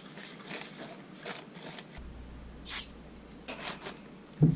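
Rag wiping a cylinder head clean: a series of short rubbing strokes, with one sharper hiss about two-thirds of the way through. A heavy thump comes at the very end.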